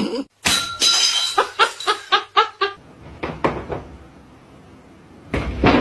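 A person laughing in a quick run of short "ha" bursts, with a short loud noisy burst just before it and another near the end.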